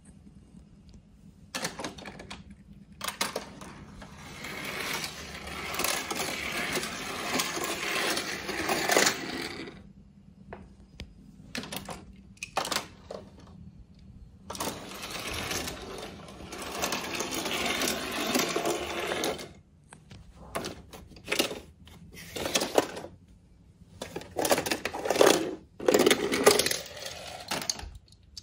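Die-cast toy cars rolling and rattling down the plastic spiral ramps of a toy garage tower. Two long runs of about five seconds each are followed near the end by several short clatters of cars knocking along the track.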